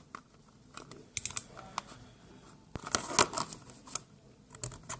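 A miniature's small retail box being opened by hand: light clicks, scrapes and rustles of the packaging in a few short clusters, loudest about three seconds in.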